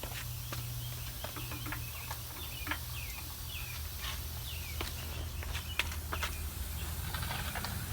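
Birds chirping now and then over a steady low hum, with a few light clicks and knocks scattered through.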